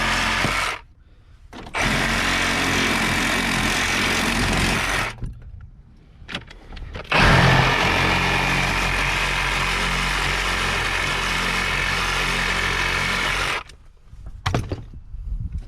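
Handheld power tool run in three long, steady stretches, the longest about six seconds, to get a car battery out.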